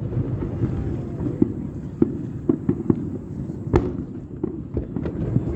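Aerial fireworks shells bursting in a rapid, irregular string of sharp bangs, one loudest about two-thirds of the way through, over a steady low rumble.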